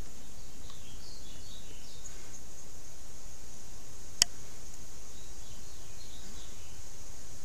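Steady outdoor ambience through a trail camera's microphone: an even hiss with a constant high-pitched band, a few faint bird chirps in the first two seconds, and a single sharp click a little past four seconds in.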